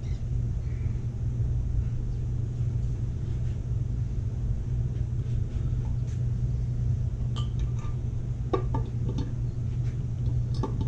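Steady low hum throughout, with light metallic clinks and taps in the second half: a Holley Sniper EFI throttle body being set down onto the intake manifold's studs.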